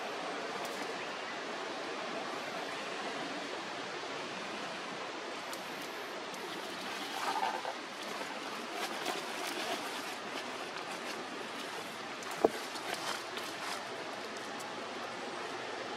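Steady outdoor background hiss, with light crackles through the middle and one sharp click about twelve and a half seconds in.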